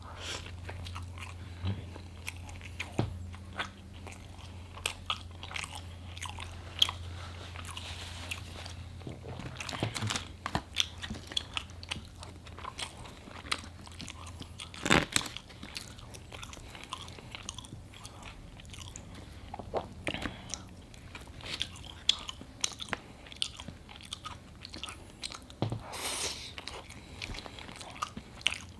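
A person chewing and biting food close to the microphone, with many irregular wet mouth clicks and smacks: mukbang eating of a burger and fries.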